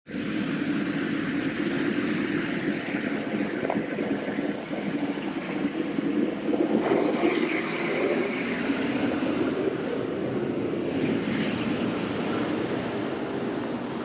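Lead diesel-electric locomotives of a Union Pacific intermodal train running as they approach, a steady low rumble.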